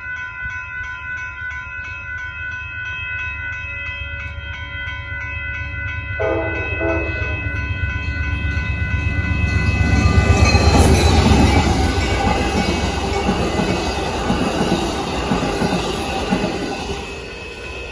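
Amtrak Texas Eagle passenger train approaching and passing a road grade crossing, with a steady ringing crossing bell. A brief horn sounds about six seconds in. The train then runs past, loudest about ten to twelve seconds in, and eases near the end.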